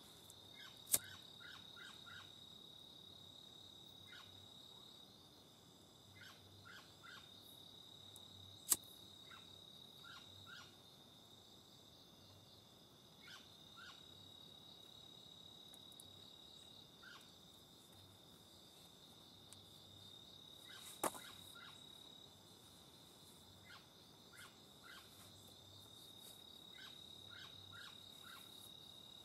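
Faint, steady night chorus of crickets, a high continuous trill, with scattered groups of short, lower chirps. Three sharp clicks stand out: one about a second in, one about a third of the way through and one about two-thirds through. They come from the metal shackle of a paracord bracelet being handled.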